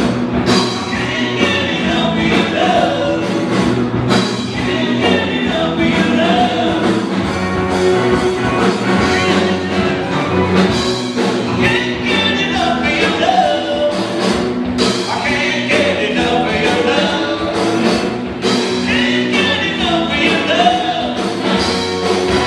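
Live rock-and-roll band playing with a singer: amplified electric guitars and vocals.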